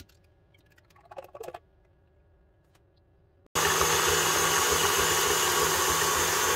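A few small handling clicks, then about three and a half seconds in an electric mixer starts suddenly and runs at a steady whir, whipping thickened cream.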